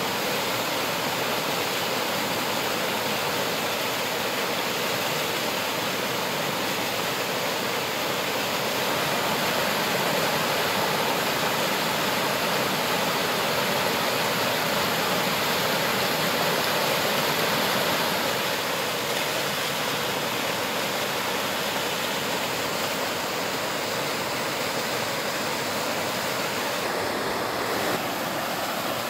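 Waterfall: water pouring down steadily with an even rushing roar, swelling slightly for several seconds midway.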